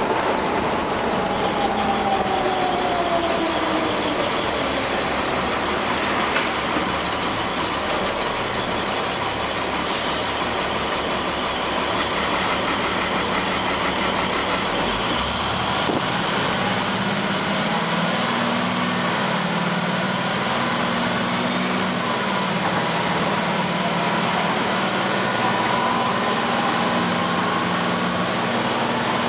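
Diesel engine of a 1999 International school bus running under way, its pitch falling over the first few seconds, then with a wavering low hum through the second half.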